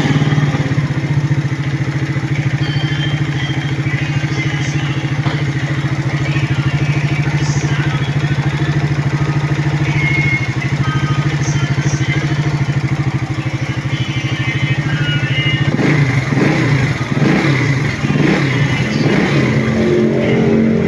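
Marvel 130i motorcycle engine idling steadily after being started. About 16 seconds in it is blipped and revved unevenly, with some clatter.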